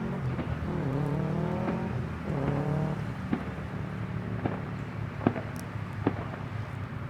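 A vehicle engine accelerating, its pitch climbing and changing over the first three seconds. After it come a few sharp pops spaced about a second apart, the loudest a little past the middle, fitting fireworks bursting in the distance.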